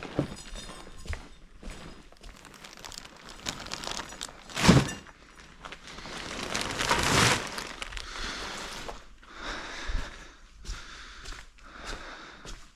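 Garbage being handled and tossed: plastic bags rustling and crinkling, one loud thud about four and a half seconds in, and scattered light knocks.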